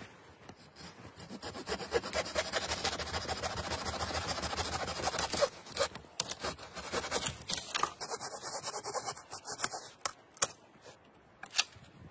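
Hand saw cutting through a dead, dry conifer branch in quick back-and-forth strokes that ease off about halfway through, followed by a couple of sharp cracks near the end.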